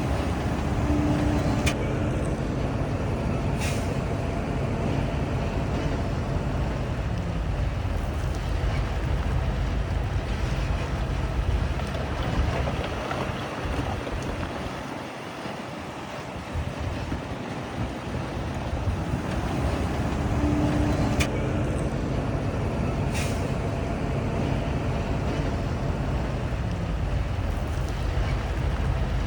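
Heavy diesel earthmoving machinery running: a deep engine rumble that eases and quietens about halfway through, then builds again, with a few brief sharp clicks.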